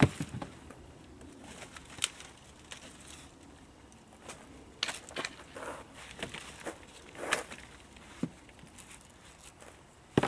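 Dry dead branches and wood cracking and knocking as they are handled on a fallen log, with rustling of twigs: scattered sharp cracks, the loudest right at the start and just before the end, with a busier run of them in the middle.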